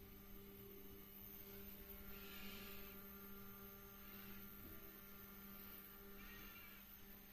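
Faint, steady electrical hum from the 3D printer's Z-axis stepper motors, which are carrying a 4 kg load. Soft hissing swells come and go about every two seconds.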